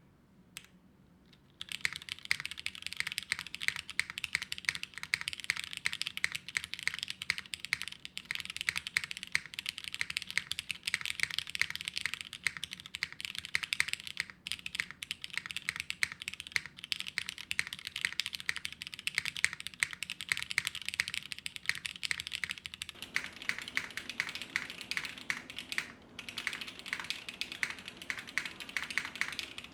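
Steady fast typing on a TGR Jane v3 custom mechanical keyboard with Cherry switches and a carbon-fibre half plate, a dense run of keystroke clacks. It starts about a second and a half in. About three quarters of the way through the keystrokes take on a fuller, lower body, and there is a brief pause near the end.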